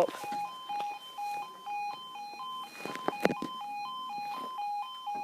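UK level crossing warning alarm sounding its two-tone yodel, a low and a high tone alternating steadily, with a couple of sharp knocks about three seconds in.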